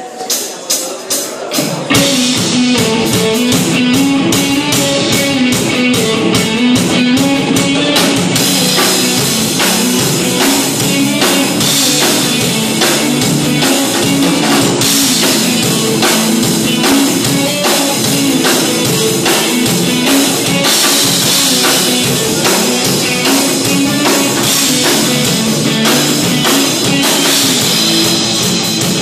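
Live rock band playing loud, with electric guitars and a drum kit. It opens on a few strikes growing louder, and the full band comes in about two seconds in and keeps going at an even level.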